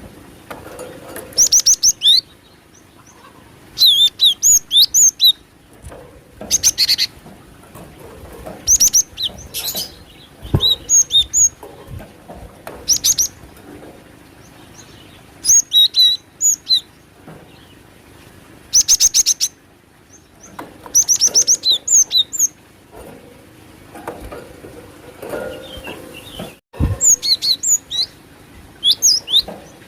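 Cinereous tit (glatik batu) calling: bursts of rapid, sharp high chirps, repeated every couple of seconds. This is a bird-lure call that the title says features the female's voice.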